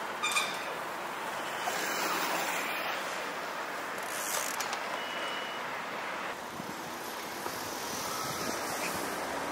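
Urban street ambience: a steady hiss of traffic noise with vehicles passing. A click comes just after the start, and a brief high tone about halfway through.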